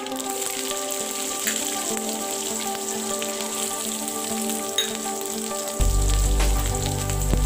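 Seeds and garlic sizzling and crackling in hot oil in a kadai, with background music playing a steady tune. A deep bass comes into the music near the end.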